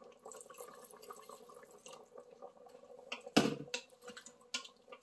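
Hot water poured from a kettle into the stainless steel inner pot of an Instant Pot, trickling and dripping onto the beef. Then a wooden spoon stirs and knocks against the pot a few times, the loudest knock about three and a half seconds in.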